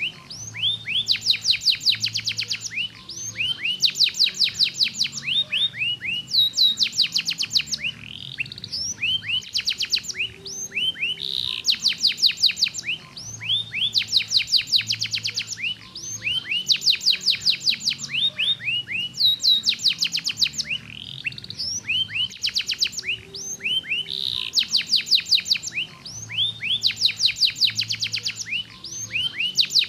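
Domestic canary singing: repeated bursts of fast, high-pitched trills, each about a second long, linked by short sweeping notes.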